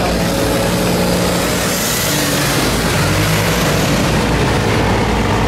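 Boat engines running under a steady, loud rushing noise; a deeper engine note comes up about three seconds in.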